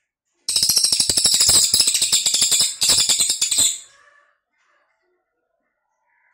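Cililin bird giving its rapid-fire 'nembak' song: a loud, fast rattling run of sharp, clicky notes lasting about three seconds, then breaking off.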